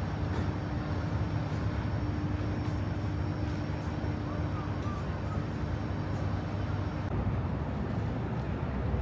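Steady low engine rumble, with a thin steady hum over it that cuts off about seven seconds in.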